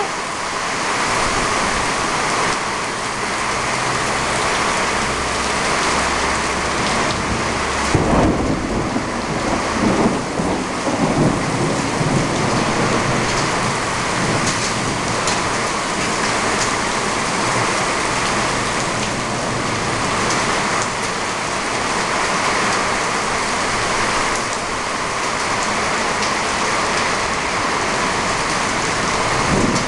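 Heavy rain pouring down in a severe thunderstorm, with thunder rumbling. A sharper, louder crack of thunder comes about eight seconds in.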